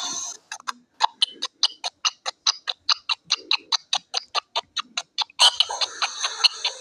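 A rapid, even run of sharp clicks, about five a second, joined by a burst of hiss about five and a half seconds in while the clicking continues.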